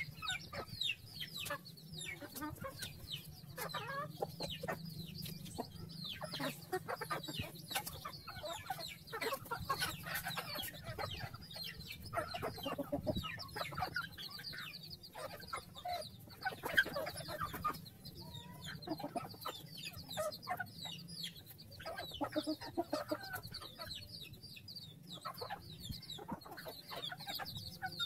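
A flock of chickens clucking as they peck and feed, with many short, high, falling peeps from chicks among them.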